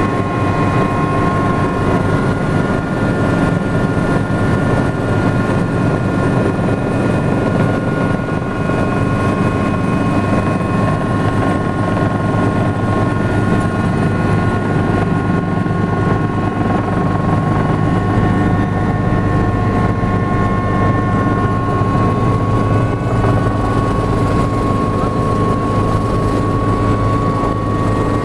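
Helicopter engine and rotor noise heard inside the cabin on a descending approach to land: a steady low rotor drone under a constant high whine.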